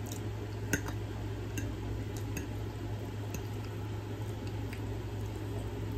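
Close-miked eating: soft wet chewing with a few sharp little clicks of a fork against the plate, over a steady low hum.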